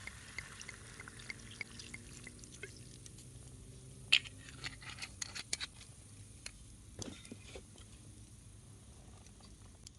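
Wood campfire crackling, with irregular sharp pops and one louder pop about four seconds in.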